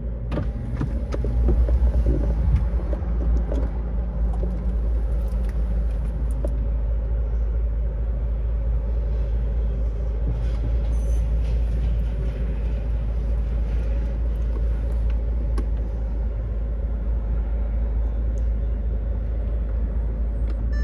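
Bentley Continental GTC's twin-turbo W12 idling with a steady low rumble while the power convertible top folds down, with occasional clicks from the top mechanism.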